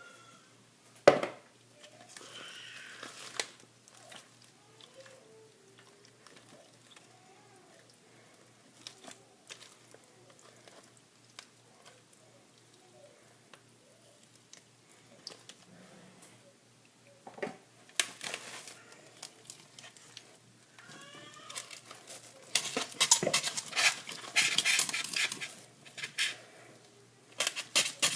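Kitchen bowls and utensils being handled while raw chicken is prepared: a sharp knock about a second in, scattered light clinks, then a long stretch of rapid clattering and scraping in the last third.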